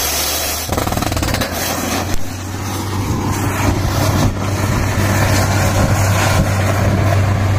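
Truck-mounted borewell drilling rig running, its engine and drilling machinery giving a loud, steady low drone.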